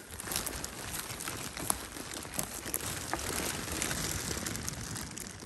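Footsteps crunching and rustling through lichen and pine needles on a forest floor, a continuous run of small crackles.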